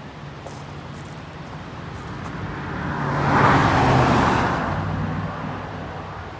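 A motor vehicle passing by on the road: tyre and engine noise rises, is loudest a little past halfway through, then fades away.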